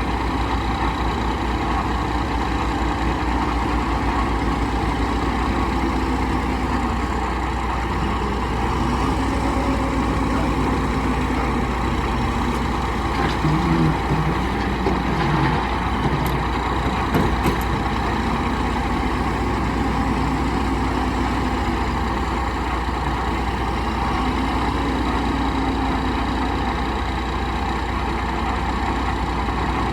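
A JCB 3CX backhoe loader's diesel engine running steadily, its pitch rising and falling several times as it revs and settles while working. A few knocks come near the middle.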